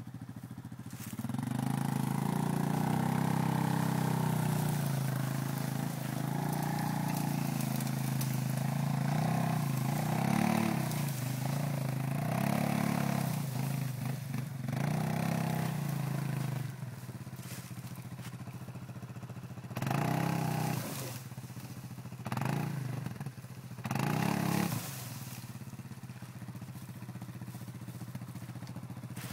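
A motor vehicle's engine running and revving up and down, loud for most of the first half. Later come three short bursts of throttle, a couple of seconds apart.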